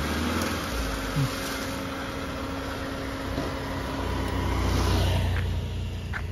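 A motor vehicle's engine, with the sound of a vehicle going past swelling to its loudest about five seconds in over a steady low hum.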